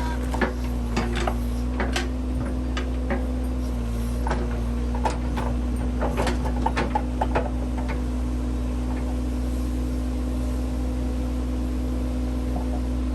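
Case 580C backhoe engine running steadily, with a scatter of sharp clicks and knocks over the first half that then stop.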